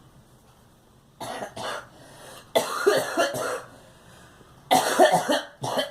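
A girl coughing in fits: two short coughs about a second in, a longer run of coughs in the middle, and another cluster of coughs near the end.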